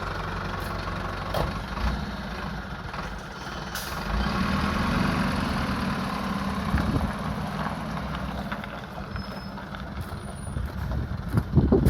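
Flatbed tow truck's engine running, then building up about four seconds in as the truck pulls away, and fading after that.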